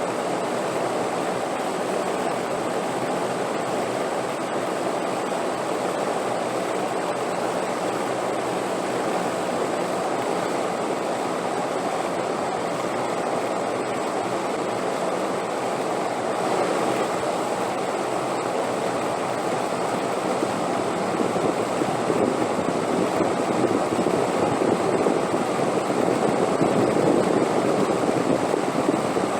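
Wind blowing steadily: a continuous rushing noise that swells a little in the last several seconds.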